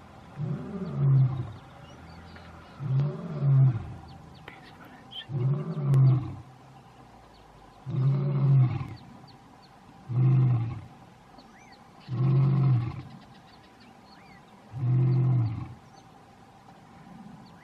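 Lion roaring: a series of deep, grunting calls, each about a second long, repeated roughly every two seconds, seven or eight times.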